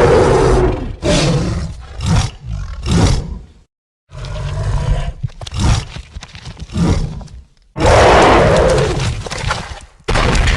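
King Kong giant-gorilla roar sound effects. One long roar fades about half a second in, followed by a run of short grunting calls. After a brief silence comes another run of short calls, then a long, loud roar about eight seconds in and a shorter one near the end.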